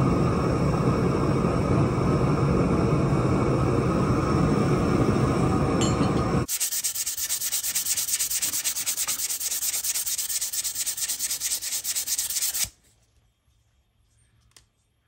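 A loud steady rushing noise, then it cuts off about six seconds in and hand-sanding takes over: quick rhythmic strokes rubbed back and forth along a wooden axe handle, stopping suddenly near the end.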